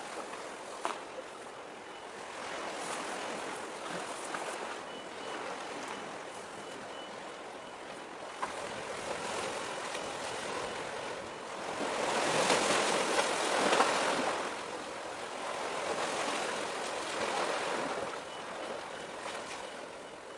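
Waves washing on the shore, swelling and easing in slow surges, with the loudest wash a little past the middle.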